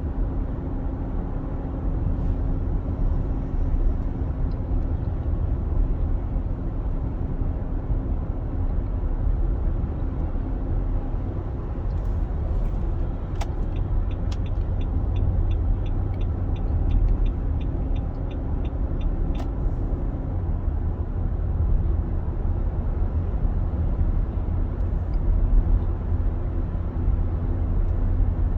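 2021 Nissan Armada's 5.6-litre V8 running with a steady low rumble and a faint hum: the loud engine noise its owner is documenting. Midway there is a run of light ticks, about two to three a second, for some five seconds.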